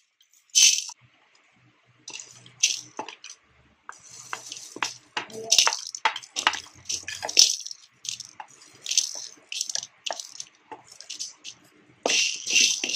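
Dry whole spices (coriander seeds, cloves, cinnamon, cashews and peppercorns) poured from a bowl into an empty dry metal kadai, rattling and pattering on the pan in many short bursts. The sound grows louder and denser near the end.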